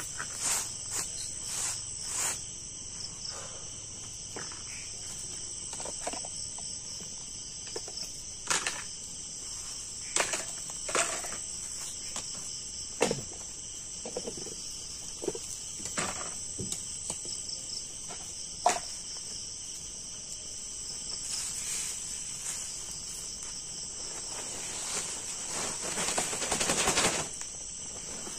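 Steady, high-pitched chorus of night insects, with scattered sharp clicks and knocks. Near the end comes a louder stretch of rustling as a plastic tarp is lifted and shaken.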